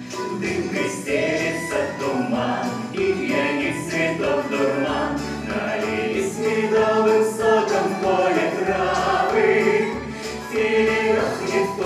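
Music: a lyrical Russian song, a vocal group singing over instrumental backing.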